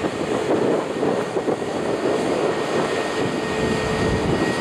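Airbus A320neo's CFM LEAP-1A turbofan engines at taxi power as the jet rolls past: a steady rush of engine noise with a faint high whine that grows clearer near the end.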